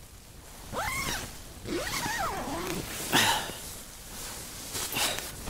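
Tent porch zip pulled twice, its rasp rising and falling in pitch as it runs around the curved door, then two short rustles of tent fabric.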